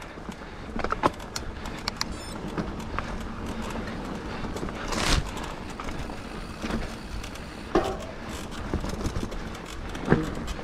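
Scott Genius 950 full-suspension mountain bike ridden along a dirt trail: steady tyre and wind noise with a stream of small clicks and rattles from the bike over bumps, and a few louder knocks, the loudest about halfway through.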